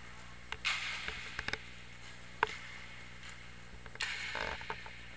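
Inline hockey play: scattered sharp clacks of sticks and puck, the loudest about two and a half seconds in, with short bursts of skate wheels rolling and scraping on the rink floor about half a second in and again around four seconds in.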